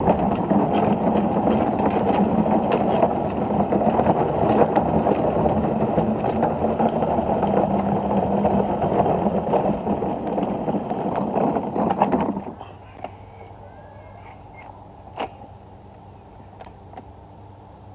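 Neuton CE6.2 36-volt battery-powered lawn mower running, its motor and blade making a steady hum. It cuts off suddenly about twelve seconds in, leaving only a few faint clicks.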